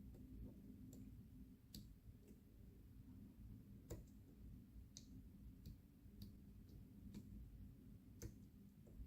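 Faint, irregular small metallic clicks of a disc-detainer pick turning the discs inside a padlock while it is being picked, about ten ticks spread unevenly over several seconds.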